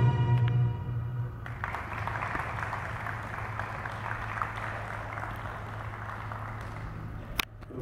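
Spectators applauding after the freestyle music ends about a second and a half in, the clapping steady under a low hum; a short sharp click near the end.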